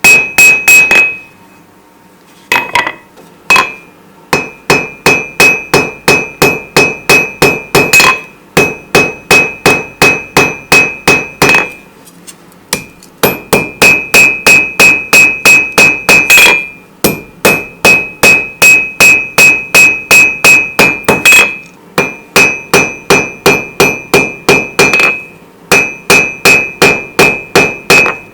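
Rounding hammer striking hot steel on an anvil in hand forging, in runs of quick blows at about three a second with a high ring, broken by short pauses between runs.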